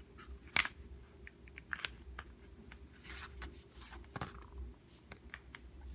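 A plastic capped gel pen being uncapped and handled over a paper notebook: a sharp click about half a second in, then scattered lighter clicks and taps, with a brief rub of a hand on paper.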